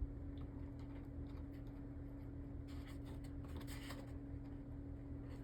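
Faint rustling and light scratching of small plastic toy parts handled by hand, with a sharp click at the start, over a steady electrical hum.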